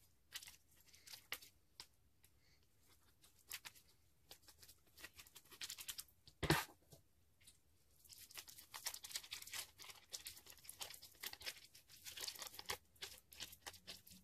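A thin plastic packet of tiny foam beads crinkling in the hands, with one sharp rip about halfway through as it is torn open. After it comes a dense, crisp crackle as the foam beads are squeezed out of the packet and pressed into slime.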